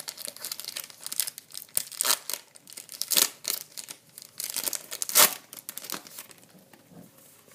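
Foil trading-card booster pack wrapper being torn open and crinkled by hand, in irregular crackles and rips, the loudest near the middle, dying away near the end.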